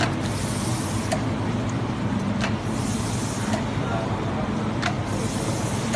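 Automatic multi-needle meat brine injector machine running: a steady machine hum with a hiss of brine spray that comes and goes, and a sharp click about every 1.3 seconds.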